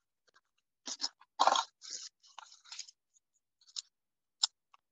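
Handling noises as a lip product is opened and put on: a few short, irregular crackles and rustles, the loudest about a second and a half in, then a sharp click near the end.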